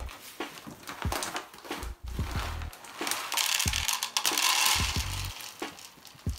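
Dry guinea pig pellets poured from a plastic bag into a plastic tub: a rattling rush of pellets from about three seconds in to about five, after scattered clicks and rustles as the bag is handled.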